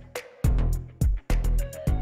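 Background music with a drum beat: deep bass drum hits and sharp, crisp hits over held pitched notes.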